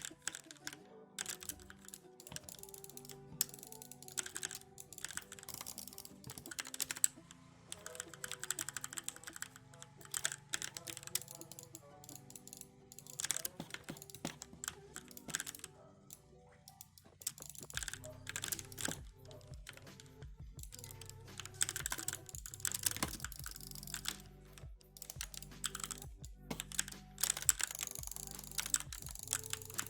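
Typing on an E-Element Z88 75% mechanical keyboard: rapid key clacks in irregular runs with short pauses, over quiet background music.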